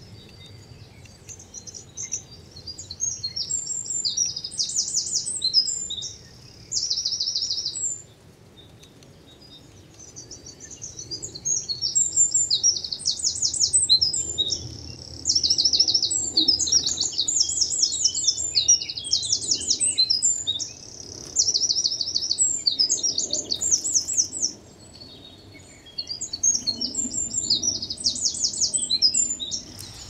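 Small songbirds singing: high, rapid twittering phrases full of fast trills, coming in runs of a few seconds with short pauses between.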